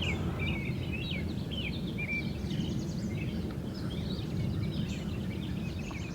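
Birds singing, a run of quick short chirps and a couple of rapid trills, over a steady low rumble.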